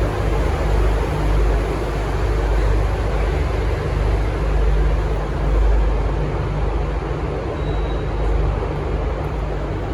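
V/Line VLocity diesel railcar set running as it departs, a steady diesel engine drone under wheel and rail noise.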